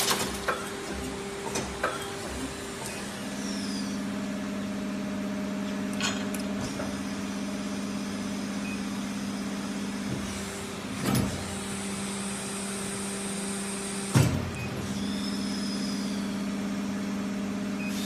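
Injection moulding machine running, its hydraulic drive giving a steady hum. The hum drops out briefly twice, each time with a knock or thump, about 11 and 14 seconds in. A few sharp clicks and knocks come near the start.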